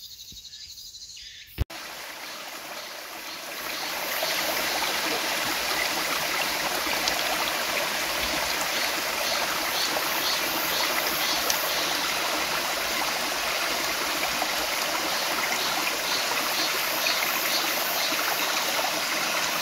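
Small mountain stream spilling down a rocky cascade into a pool: a steady rush of water that comes in about two seconds in and fills out a couple of seconds later.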